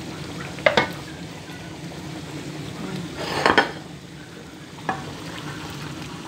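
A wooden serving spoon scooping food from the cooking pans onto a plate. It clacks against the plate and pan a few times, loudest in a short scraping clatter about halfway through, over a steady low hum.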